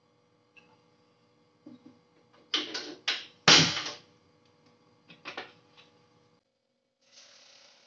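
Gas stove burner being lit: a few sharp clicks, the loudest about three and a half seconds in as the burner catches. Softer knocks of a plastic cooking-oil bottle being handled follow.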